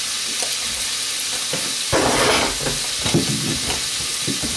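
Crab cakes sizzling as they fry in oil in a pan, a steady hiss, with a louder burst of noise about two seconds in.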